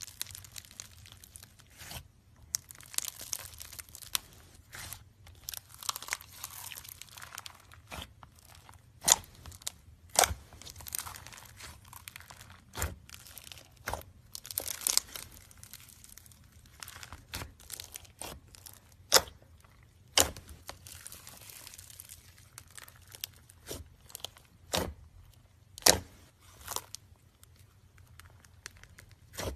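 Slime being squeezed and stretched by hand: stretches of crackling, crinkly squishing, broken by a string of sharp pops, the loudest several seconds apart.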